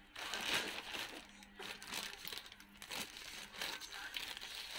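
Plastic parcel packaging being opened by hand: a courier mailer pouch crinkling and rustling in irregular crackles.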